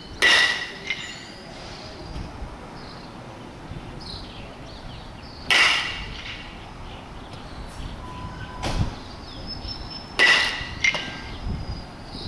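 Baseball bat hitting pitched balls three times, about five seconds apart, each a sharp crack with a brief ring.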